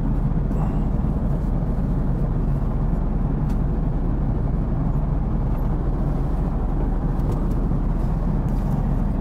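Steady drone of an Airbus A380's cabin in cruise flight: engine and airflow noise, a deep even rumble with a hiss above it.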